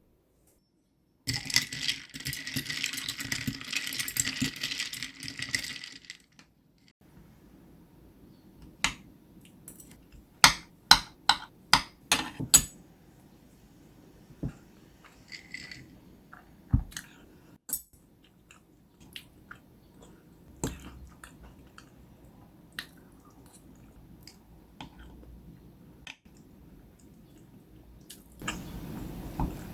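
Kitchen handling sounds: a steady hiss for about five seconds, then a quick run of sharp clicks and clinks, then scattered light taps.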